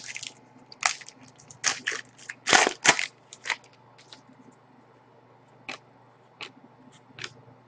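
Panini Pinnacle hockey trading cards being flipped and slid over one another in the hand: a string of short, dry snaps and rustles at irregular spacing, busiest about two to three seconds in, then sparser.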